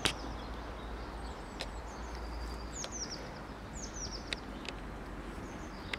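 Small birds singing in scrub trees: quick high chirps that fall in pitch, repeated again and again, over a low steady rumble, with a few sharp clicks.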